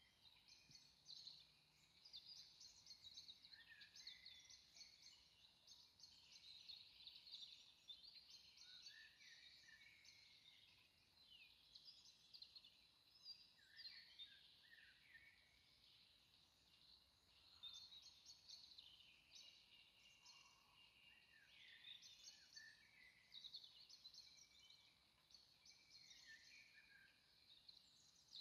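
Faint birdsong: several birds chirping and singing, their high calls overlapping almost without a break.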